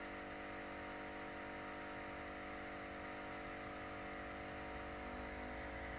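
Faint, steady electric hum with a hiss of air from a diode laser engraver's air-assist pump running at full. A low rumble joins in near the end.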